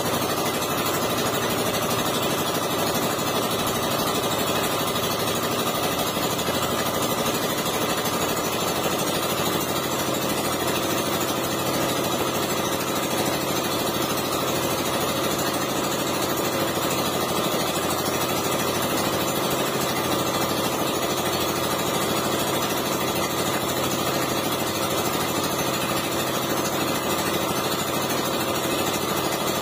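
An engine running steadily, an unbroken drone with several steady tones and no change in speed.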